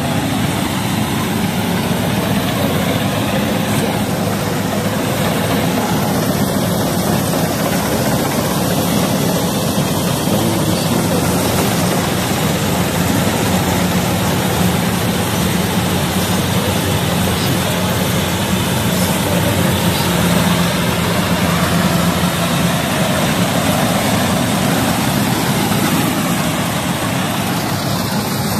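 Gatra rice combine harvester running steadily while it cuts and threshes rice, a continuous engine and machinery drone with a low hum.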